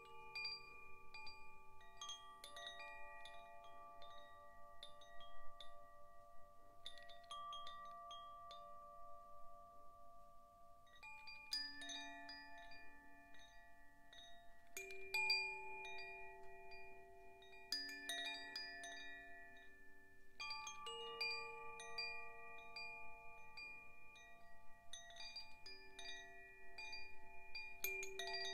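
Zaphir Sufi tuned wind chime being gently swung: a cluster of light strikes every few seconds, each leaving several pitches ringing long and overlapping.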